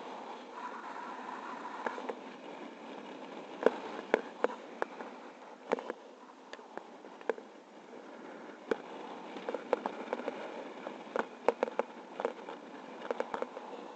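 Steady rush of in-flight wind on the camera microphone of a flying paraglider, broken by irregular sharp crackles and pops that come in two clusters, a few seconds in and again in the second half.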